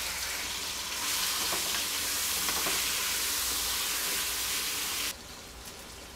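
Sauce-coated chicken wings sizzling in hot oil in a non-stick pan, a dense, steady frying hiss. About five seconds in it drops suddenly to a much fainter frying sound.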